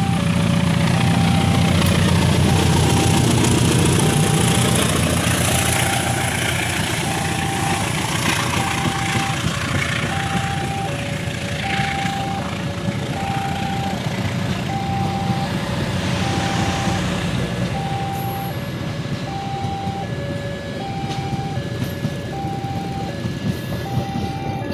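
Diesel-hauled passenger train passing close by at a level crossing: the locomotive's engine is loudest over the first few seconds, then the carriages roll past with a steady rumble of wheels on rail. Over it the crossing's electronic warning alarm keeps sounding, a high and a low note alternating at a steady rhythm.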